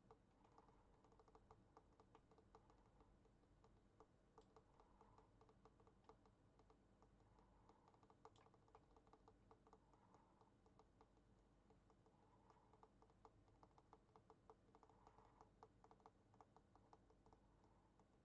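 Computer keyboard keys clicking in faint, irregular runs of taps.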